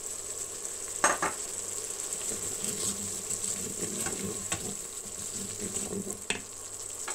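Tomato and garlic-ginger paste frying and sizzling in a pot as a wooden spoon stirs ground spices into it, with a few knocks of the spoon against the pot, the loudest about a second in.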